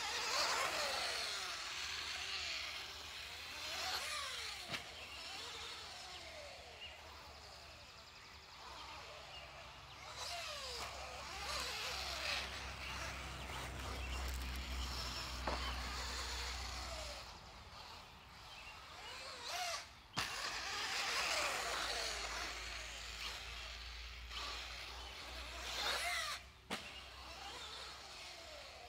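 Associated B5M, a 1/10-scale electric two-wheel-drive RC buggy, running laps on a dirt track: its motor whine rises and falls with the throttle over tyre and dirt noise, swelling several times as it passes close by.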